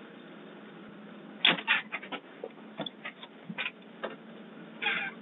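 Irregular clicks, knocks and scuffs over a steady low hum, heard through a doorbell camera's narrow-band microphone.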